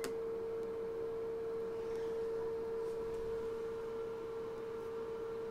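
A steady single-pitched electronic whine holding one tone, with no other sound of note.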